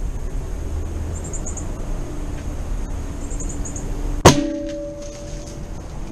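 A .25 calibre air rifle fires a single sharp shot about four seconds in, followed by a short ringing tone. Faint high chirps recur a few times before the shot.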